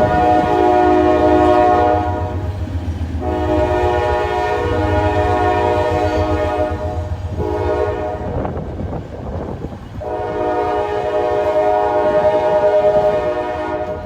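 Freight locomotive's air horn sounding the grade-crossing signal: two long blasts, a short one, then a final long one, each a steady chord of several tones. A low rumble from the train runs underneath.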